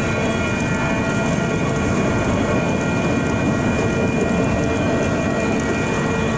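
Freight train cars rolling past at a grade crossing: a steady rumble and rattle of steel wheels on the rails, with a few thin, steady high tones over it.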